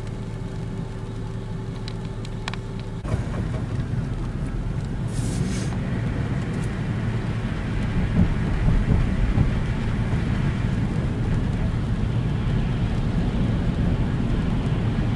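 Car driving on wet, flooded road, heard from inside the cabin: engine and tyre noise, with the road noise getting louder about three seconds in.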